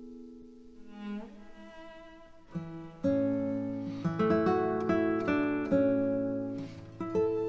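Instrumental background music on plucked strings. A held chord fades, then about three seconds in the playing picks up with sharply plucked notes over a steady bass.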